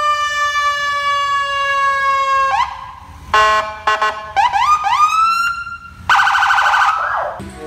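Police car siren cycling through its tones. First a long held wail that sags slightly in pitch, then a run of short rising whoops, then a rapid buzzing pulse near the end that drops away in a falling sweep.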